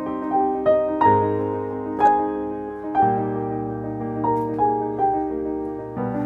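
Background music: a slow piano-like keyboard melody, notes struck every second or so and left ringing.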